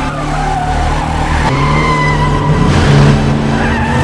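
Car-chase sound effects: a car engine running with tyres squealing and skidding.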